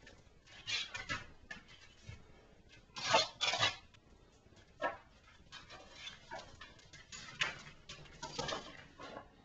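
Irregular knocks and clatter of a wooden dog chess puzzle's sliding blocks and plastic cups as a dog paws and noses at it, loudest as two knocks close together about three seconds in.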